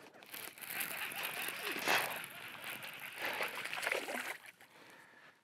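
A hooked bass splashing and thrashing at the water surface as it is reeled up beside the boat. The splashing comes in spells, loudest about two seconds in and again near four seconds, then dies away.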